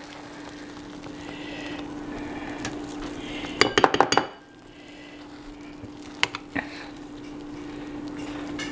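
A metal spoon scraping and clinking against ceramic dishware as hot baked blueberry dessert is dished out of a slow-cooker crock, with a quick run of clinks about halfway through and two more single clinks later. A steady low hum sits underneath.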